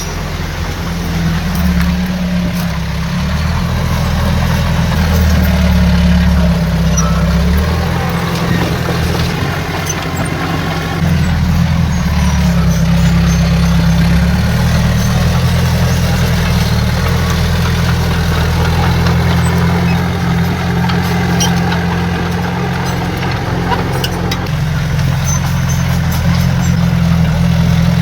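Heavy diesel engine of earthmoving machinery running steadily with a low drone that swells and eases as the load changes, growing louder about eleven seconds in.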